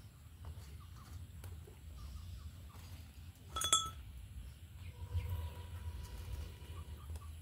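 A single sharp metal clink with a brief ring about halfway through, as the iron blow pipe knocks against the wok or hearth stones, then air blown through the pipe into the wood cooking fire, a low rumble under a faint whistle-like tone.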